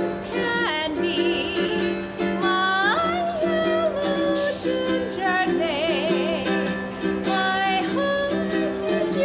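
A woman singing with wide vibrato and sharp upward pitch slides while strumming chords on an E.L. Woodworks traditional tenor ukulele.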